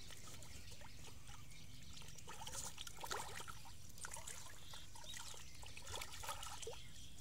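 Pangasius catfish (trey pra) surfacing to feed: irregular splashes and wet gulps as they break the water to take floating food, coming thickest from about two seconds in.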